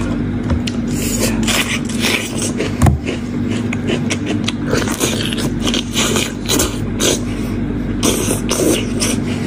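Close-miked eating sounds: wet chewing and lip-smacking with a mouth full of spicy sheep-head meat, mixed with the sticky tearing of meat pulled off the bones by hand. Short wet clicks and smacks come thick and fast over a steady low hum.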